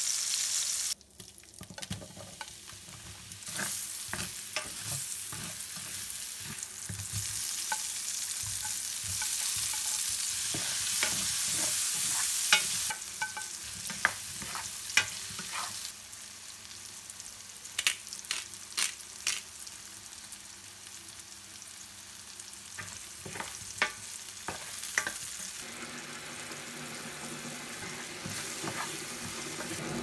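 Sliced mushrooms and halved cherry tomatoes sizzling in oil in a nonstick skillet, with a utensil stirring and clicking against the pan now and then. It opens with about a second of breaded chicken cutlets frying before a cut, and the sizzle is loudest in the first half, then quieter.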